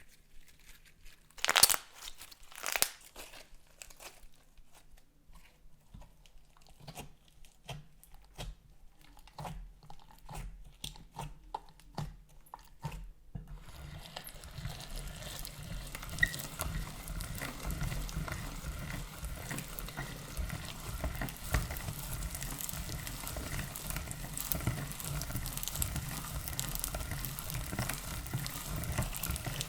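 Slime being worked and mixed by hand. Separate crunching, crackling clicks at first, with two louder ones near the start, then from about halfway a dense, continuous crackling.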